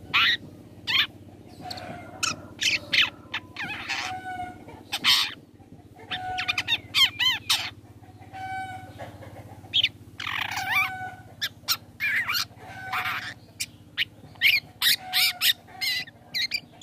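Long-tailed shrike (cendet) singing a rapid, varied string of short harsh calls, sweeping whistles and chattering notes, with brief pauses between phrases, over a faint steady low hum.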